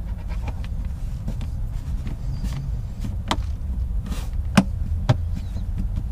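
Plastic side cover of a Westinghouse iGen2500 inverter generator being pressed back into place by hand: scattered light clicks, then three sharper knocks in the second half, the loudest two about half a second apart near the end. A steady low rumble lies under it all.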